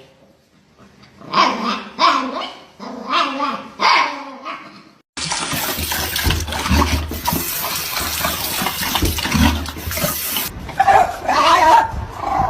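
A dog vocalizing in a run of short calls. About five seconds in, a loud steady rushing noise starts abruptly, and more dog calls come over it near the end.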